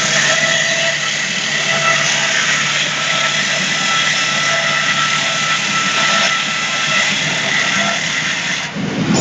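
SB-800 circular-saw log-squaring machine running, a loud, steady mechanical noise with a thin whine over it. The sound changes abruptly near the end.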